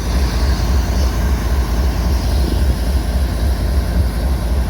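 Compressed air hissing steadily as it bleeds off a loaded coal train's air brakes, over a steady low rumble. The air is being released so the handbrakes alone must hold the train, a handbrake test.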